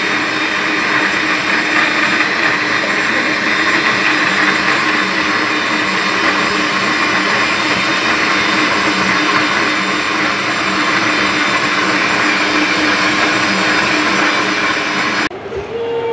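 Electric countertop blender running steadily at high speed, blending a milkshake; the sound stops abruptly near the end.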